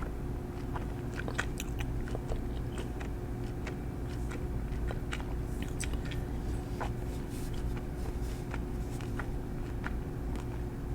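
Light irregular clicks and small taps from handling nail-painting things close to the microphone, over a steady low hum.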